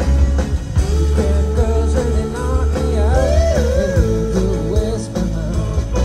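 Rock band playing with singing over drums and bass; the melody line slides up and down in pitch through the middle few seconds.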